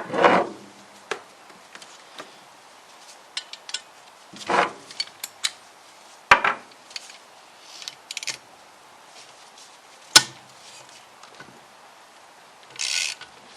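Hand tools clinking and knocking on metal while the engine-stand adapter plate bolts are undone. Near the end comes a short burst of socket-wrench ratcheting.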